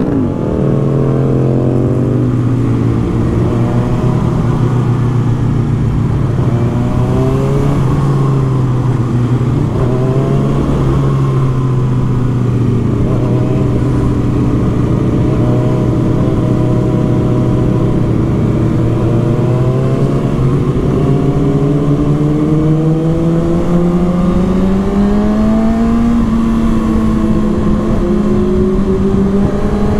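Kawasaki ZX-6R's inline-four engine running at a steady pitch, then rising as the bike accelerates about three-quarters of the way in, easing slightly and climbing again near the end.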